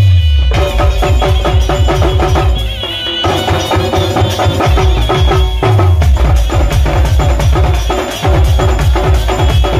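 Dhumal folk band playing a fast, driving rhythm on double-headed drums with keyboard and shakers. Deep bass drops fall in pitch at the start and again about six seconds in, and the beat thins out briefly near three seconds.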